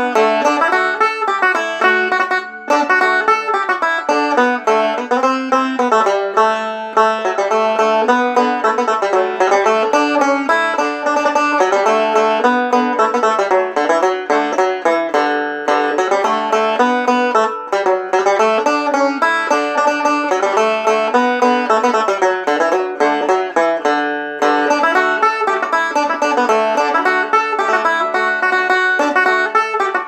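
Deering Eagle II banjo played solo: a steady, lively stream of fast picked notes in an old-time fiddle tune, with a couple of very brief breaks.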